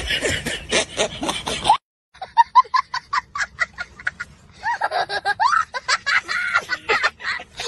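Laughter, in a quick run of short repeated bursts, following a brief dead silence about two seconds in.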